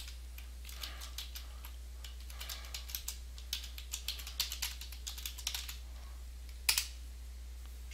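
Typing on a computer keyboard: a run of irregular keystrokes as a short phrase is typed, with one louder click near the end.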